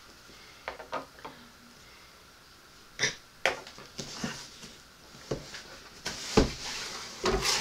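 Cardboard shipping box being slit open and handled: a few faint clicks, then from about three seconds in a series of short, sharp scrapes and rustles of cardboard and packing tape.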